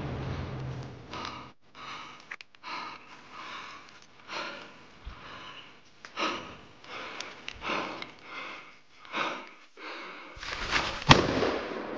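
A hunter breathing hard in short, rhythmic breaths while pushing through woodland brush. Near the end louder rustling starts and a single sharp crack sounds.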